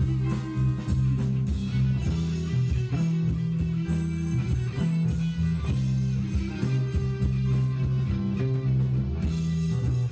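Live band playing an instrumental passage, with guitars and bass guitar.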